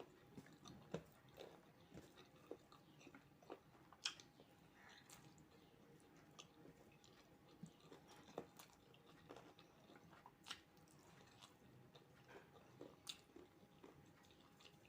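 Faint, close eating sounds from a person chewing fried rice and chicken curry: soft irregular mouth clicks and smacks, a few sharper ones scattered through.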